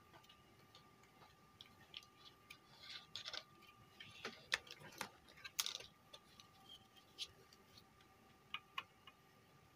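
Faint scattered clicks and short crackles from soldering on a switch-mode power-supply circuit board: the soldering iron and solder working the leads of a 13007 transistor fitted in place of the failed 13009. The clicks cluster in the middle, with a few more near the end.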